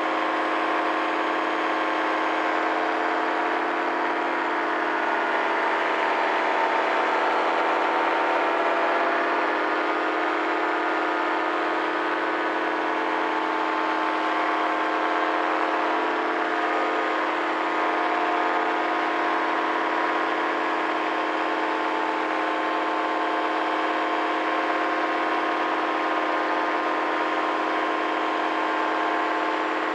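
Paramotor engine and propeller running steadily in flight, a constant drone that eases slightly in pitch about five seconds in and comes back up a few seconds later.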